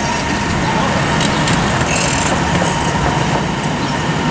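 Coaches of a 15-inch-gauge miniature railway train rolling slowly past, a steady rumble of wheels on the rails.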